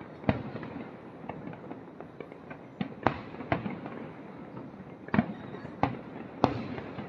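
Aerial fireworks display: about seven sharp booms of shells bursting at irregular intervals, over a steady light crackle. The loudest bursts come just after the start and near the end.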